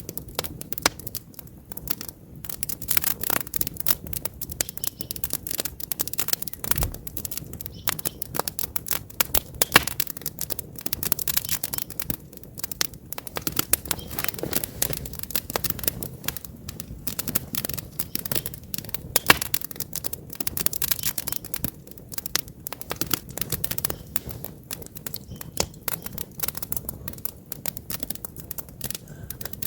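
Wood campfire crackling: a dense, irregular run of sharp snaps and pops from the burning logs over a soft hiss, with a few louder pops along the way.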